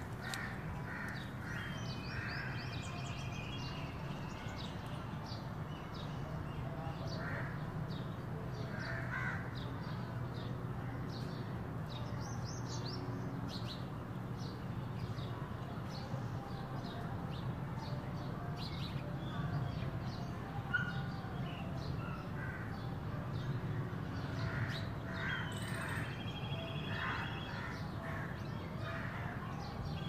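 Several birds calling: many short chirps scattered throughout, and a longer harsh, rasping call twice, once near the start and once near the end, over a steady low hum.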